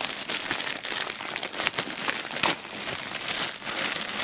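Plastic shrink-wrap film being handled and pulled off an item, crinkling and crackling with many quick sharp crackles.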